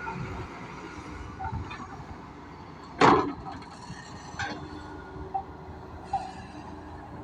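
Doosan DX140 crawler excavator's diesel engine running steadily under work, with scattered metal clanks and knocks. One loud clank comes about three seconds in.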